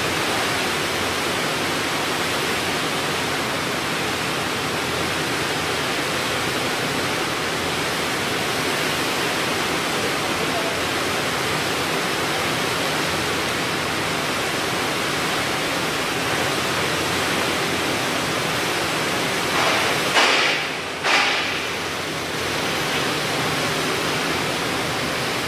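Steady rushing noise of factory machinery around a large glass-fibre cloth batching (winding) machine, even and without rhythm. Two short loud bursts of noise come about twenty seconds in.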